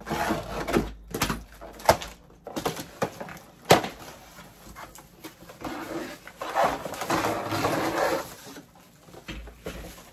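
Scissors slitting packing tape on a cardboard box, then cardboard flaps and packing pieces scraping and rustling as the box is opened. A couple of sharp knocks come about two and four seconds in.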